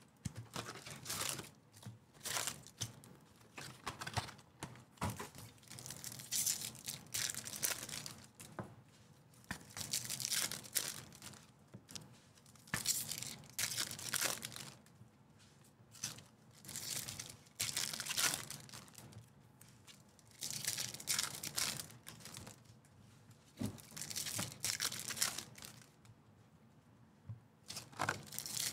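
Foil trading-card pack wrappers (Topps Chrome basketball hobby packs) being torn open and crinkled by hand, in short irregular bursts every second or two.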